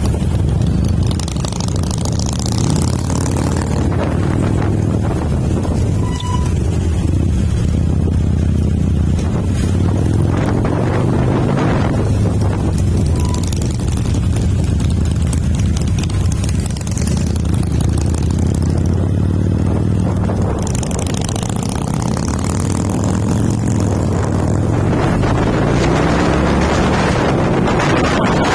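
Motorcycle engine running steadily at road speed, heard from the bike carrying the camera, with wind rushing over the microphone.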